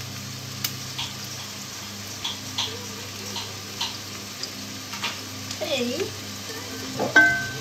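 Food cooking in a pot on the hob: scattered small pops and crackles over a steady low hum, with a short pitched tone near the end.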